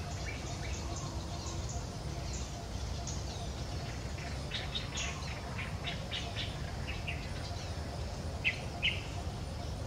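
Birds chirping: scattered short, high chirps, a quick run of them about halfway through and two louder ones near the end, over a steady low rumble.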